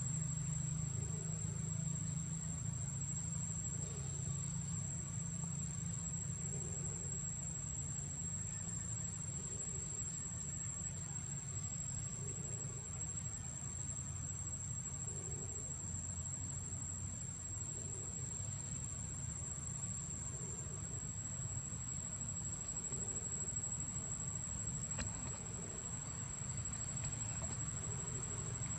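Insects droning in a steady, unbroken high-pitched whine, over a low steady rumble.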